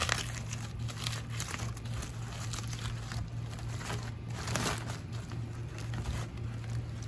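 Aluminium foil wrapping crinkling and rustling in irregular handfuls as a foil-wrapped sandwich is unwrapped by hand, over a steady low hum.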